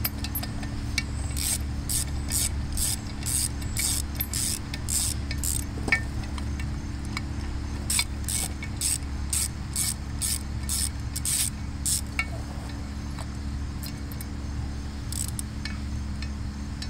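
Socket ratchet clicking in quick runs of about three or four clicks a second, with pauses between runs, as it backs the bolts off a Gravely tractor's wheel hub. A steady low hum runs underneath.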